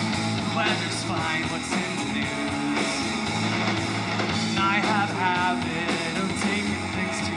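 Live rock band playing: electric guitar, bass guitar and drums.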